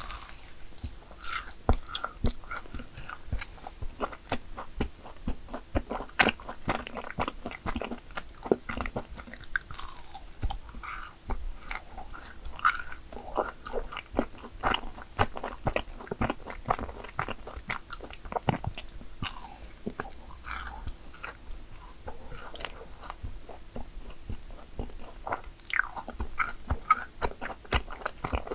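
A person biting into and chewing yakgwa cookies: many short, crisp crunches.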